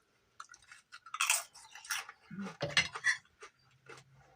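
Close-up chewing of crisp, butter-toasted bread dipped in spinach dip: irregular crunching bites, with a short low hum near the end.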